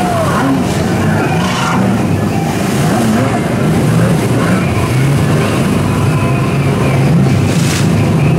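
Stand-up jet ski engines revving up and down while the riders spin and jump through the waves, several engines at once with their pitch rising and falling.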